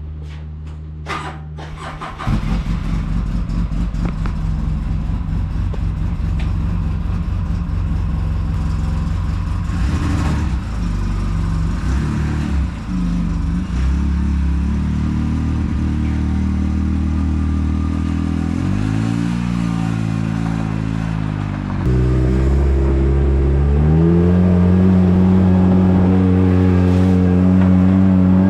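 Polaris RZR 800 side-by-side engine running, with several short revs and pitch changes in the second half. It gets louder about two seconds in and again near 22 seconds.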